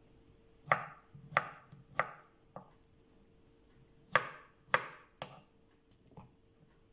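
Kitchen knife cutting a boiled beetroot on a wooden cutting board: sharp chops against the board, four in a row about a second in, then after a pause three more, each about two-thirds of a second apart.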